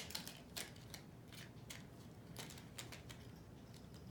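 Faint, scattered snips and clicks of scissors cutting small plastic toy pieces free from their packaging.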